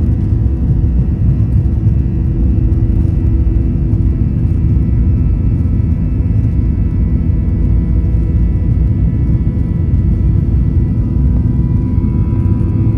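Jet airliner engines running at takeoff power, heard from inside the cabin: a loud, steady low rumble with a few thin steady whining tones above it.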